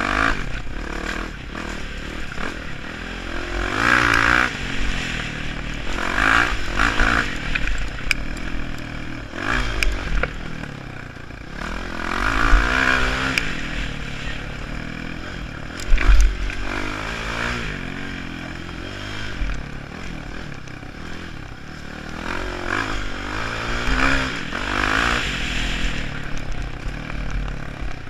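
Dirt bike engine being ridden hard, revving up and falling back again and again through the gears, with rattles and clatter from the bike. A single sharp thump stands out about halfway through.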